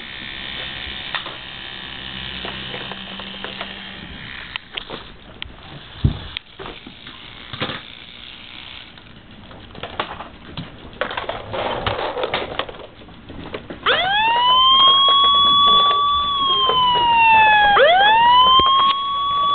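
Electronic siren of a battery-powered Hess toy truck, starting about two-thirds of the way in: a pitch that sweeps up, holds, slides down and sweeps up again. Before it, scattered clicks and handling noise.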